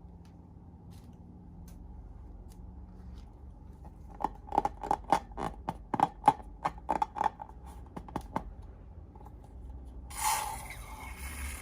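Slime and balloons being handled: after a quiet start, a quick run of about fifteen sharp pops and clicks over some four seconds, then a rustling scrape near the end.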